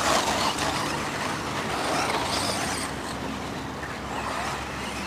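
Radio-controlled off-road buggies racing, their motors whining and gliding up and down in pitch as they speed up and slow down.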